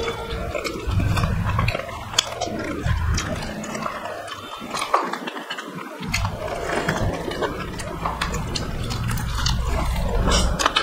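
Close-up eating sounds: chewing and wet lip smacks with many small clicks, from people eating curry and rice by hand.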